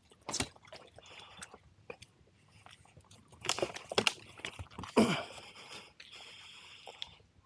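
Dry twigs and leaf litter crackling and crunching as they are disturbed while a paddle and a paddleboard are handled, with a few louder knocks and a scrape in the middle.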